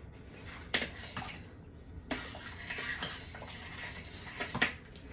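A spoon stirring and scraping through stewed beans in a stainless steel pot, with a few sharp knocks of the spoon against the pot's side, the loudest near the end.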